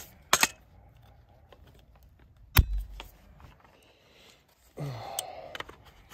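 AR-15 rifle being reassembled by hand: light metal clicks, then one sharp metal clack with a dull thud about two and a half seconds in, and a short scraping slide near the end.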